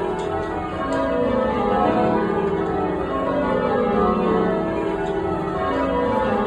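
A ring of Gillett & Johnston church bells sounding in change ringing, the bells struck one after another in a steady continuous run of overlapping tones.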